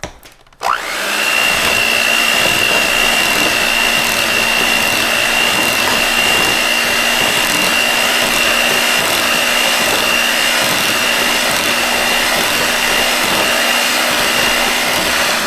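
Electric hand mixer beating thick cheesecake batter in a glass bowl. The motor spins up with a quick rising whine about half a second in, runs at one steady speed with a high whine over a low hum, and switches off at the very end.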